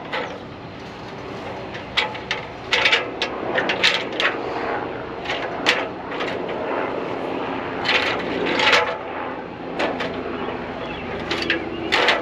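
A ladder being moved and set in place: a scattered series of knocks, clanks and rattles over a steady low hum.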